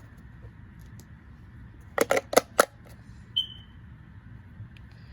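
Batteries being fitted into a Midland WR400 weather radio: a quick run of three or four sharp plastic clicks and snaps about two seconds in, then a short high beep.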